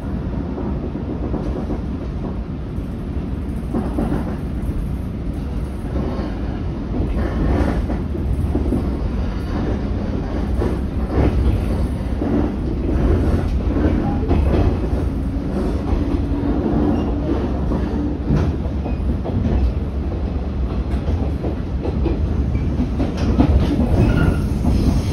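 A 115 series electric train heard from inside its passenger car as it pulls away and gathers speed. Steady running noise builds slowly, with the wheels knocking irregularly over rail joints and points.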